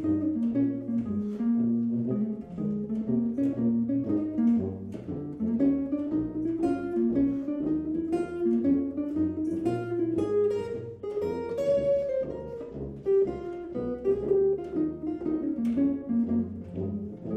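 Jazz blues played on an archtop electric guitar: a run of quick single-note lines that climb and fall, over a low bass line underneath.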